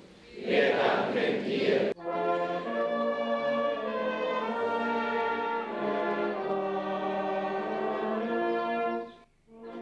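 A choir singing, cut off abruptly after about two seconds by a slow chorale of held chords played by brass instruments, which breaks off suddenly near the end.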